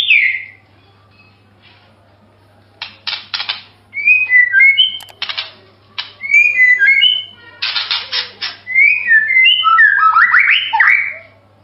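White-rumped shama (murai batu) singing: phrases of clear whistled notes that glide up and down, alternating with quick runs of harsh rattling notes, with short pauses between phrases. A sweep of rising whistles comes near the end.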